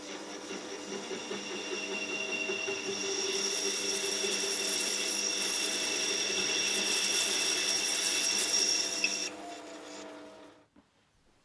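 Workshop power tool running with a steady motor whine, its cutting noise louder through the middle; switched off about nine seconds in, it winds down and falls quiet a second and a half later.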